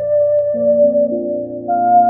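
Background instrumental music: slow, held notes over sustained chords that change a few times.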